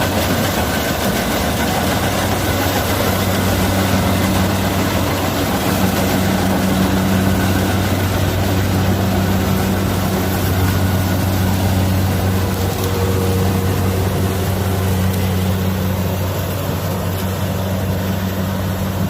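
Kubota DC-70 Plus combine harvester's diesel engine running steadily at an even speed.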